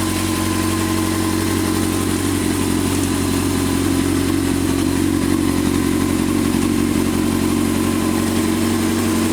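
2006 Honda CBR600F4i inline-four engine idling steadily.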